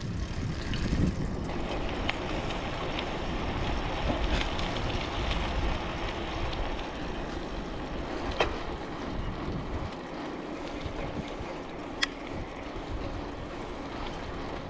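Bicycle riding noise: wind rumbling on the camera microphone over tyre and road noise, with a few sharp clicks or rattles from the bike, the clearest about eight and twelve seconds in.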